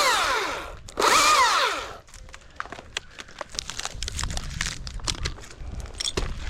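Husqvarna chainsaw revved twice in short blips, its engine pitch falling away after each, then dropping back. This is followed by irregular clicks and crackles with a low rumble underneath.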